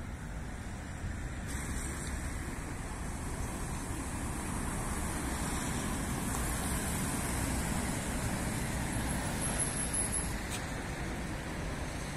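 Road traffic passing on a city street: a steady rush of tyres and engines that slowly swells and is loudest in the second half, with a brief thin high tone about nine seconds in.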